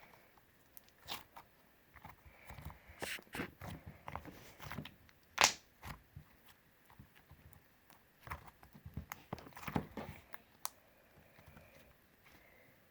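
Homemade slime being squished and pulled by hand, giving off irregular sticky clicks and crackles, with the loudest pop about five and a half seconds in.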